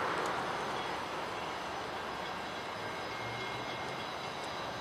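Diesel locomotive engine running at a distance, a low steady hum that grows about three seconds in, over a general background hiss.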